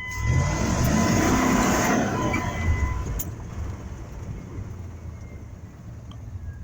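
Logging truck engine revving up as it pulls away, with a thin steady whine over it for the first few seconds, then settling to a lower, quieter run. A sharp click comes about three seconds in.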